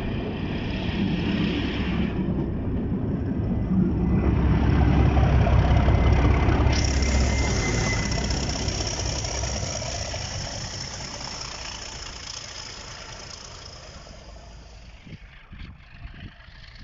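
Diesel train passing, its engine rumble loudest about five seconds in and then slowly fading away. A high steady whine joins about seven seconds in and fades with it.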